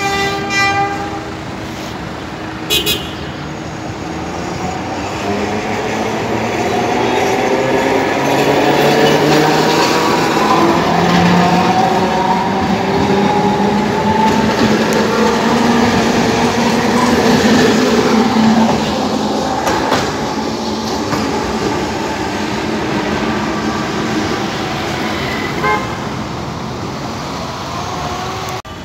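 A multi-car electric street tram passing close by on street track: its wheels rumble on the rails, and its traction motors whine in several gliding tones that slowly rise in pitch. The sound is loudest through the middle and eases off near the end. Two short horn toots sound in the first three seconds.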